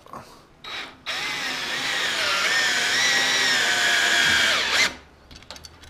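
Cordless drill running against a wooden board overhead for about four seconds, its motor whine wavering in pitch, then stopping suddenly, after a short blip just before.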